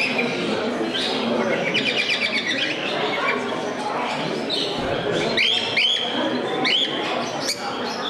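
Many small cage birds chirping and twittering in quick, repeated trills, over a murmur of people talking in a large hall.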